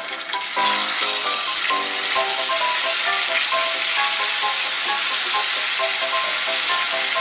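Cumin paste sizzling in hot oil in a non-stick frying pan as it is stirred with a spatula, the sizzle swelling about half a second in.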